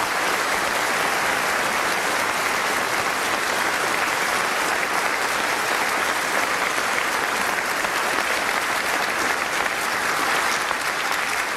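A large audience applauding steadily, dying away at the very end.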